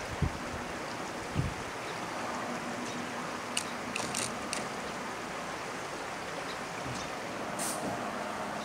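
Steady rush of flowing river water, with two low thumps about a quarter second and a second and a half in, and a few short high ticks around the middle and again near the end.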